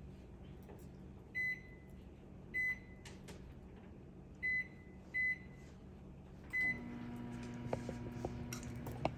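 Microwave oven keypad beeping five times as the two-minute cook time is keyed in, then the oven starting up and running with a steady hum.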